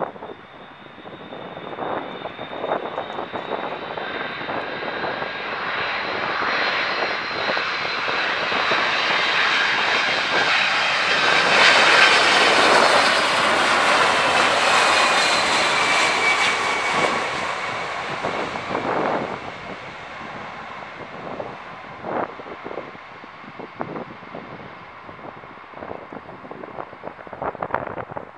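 Four-engine Boeing 747-400F jet passing on landing approach. Its engine noise builds to a peak about halfway through and then fades, and its whine drops in pitch as it goes by. Wind gusts buffet the microphone throughout.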